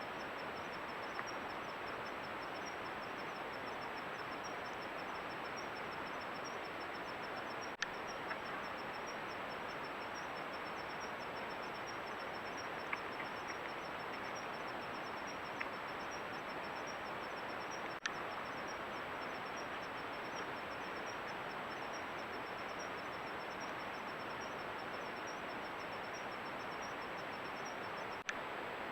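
Steady hiss of outdoor night-time ambience picked up by a wildlife camera's microphone, with a faint high ticking repeating at an even pace throughout. A sharp click comes about every ten seconds, where recordings are joined.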